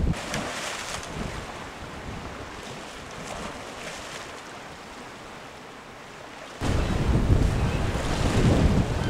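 Sea surf washing against rocks as a steady hiss; about two-thirds of the way through, loud wind buffeting on the microphone cuts in over the surf.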